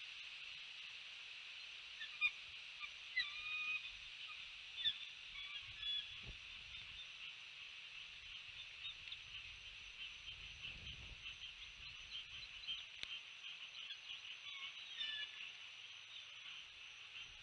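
A series of short, high bird chirps, several in the first few seconds and scattered ones after, over a steady high-pitched hiss.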